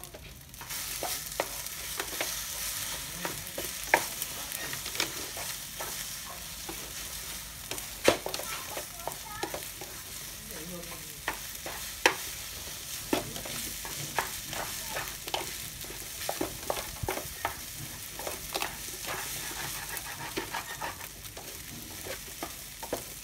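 Rice and eggs frying in a pan with a steady sizzle that comes up about half a second in, while a spatula stirs and scrapes against the pan with frequent sharp clicks.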